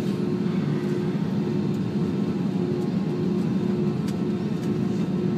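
Jet airliner's engines running at idle during taxi, heard inside the cabin: a steady low rumble with a constant hum over it.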